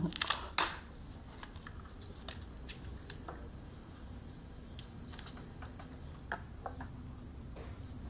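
Crunching bites into a crisp fried dough stick (youtiao), loudest in the first second, followed by scattered light clicks and ticks of chewing, chopsticks and tableware.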